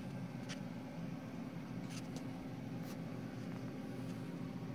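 Quiet room tone: a steady low hum with a few faint, soft ticks.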